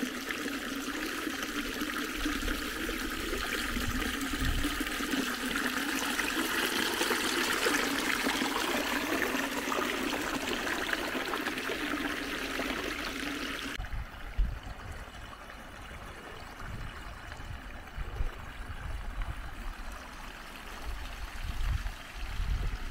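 Small woodland stream running and trickling over rocks as a steady rushing hiss. About 14 s in the sound cuts abruptly to a quieter stretch of running water with low, irregular bumps underneath.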